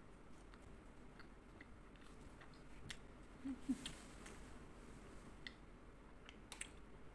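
Close-up chewing of a piece of chocolate: faint, scattered wet mouth clicks, with a louder burst of mouth sounds about three and a half seconds in.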